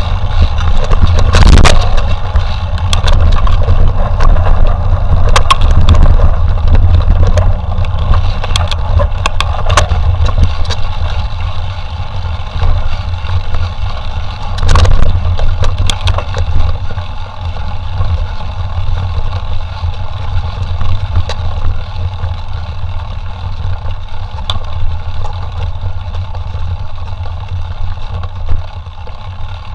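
Mountain bike ridden over rough forest trail: a steady low rumble of wind and ride vibration on the bike-mounted microphone, with scattered knocks and rattles, the loudest about a second and a half in and again about fifteen seconds in.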